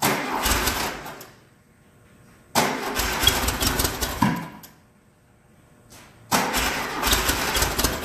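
Freshly built air-cooled Volkswagen flat-four firing in three short bursts with pauses between, catching and dying each time. It runs rough because only one of its two carburetors has fuel yet.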